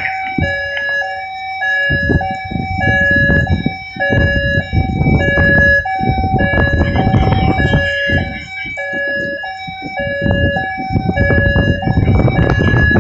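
Two-tone warning alarm of the ammonia deluge system sounding during its activation test, alternating steadily between a low and a high tone about every half second. A loud, uneven rushing noise rises and falls beneath it from about two seconds in.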